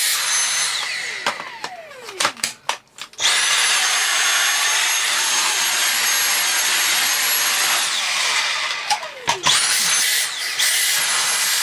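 Dyson V6 cordless vacuum's motor switched on and off several times: each run starts with a rising whine that settles into a steady high whine over a rush of air, then winds down with a falling tone. It is being test-run with the filter out after the cyclone clean-out.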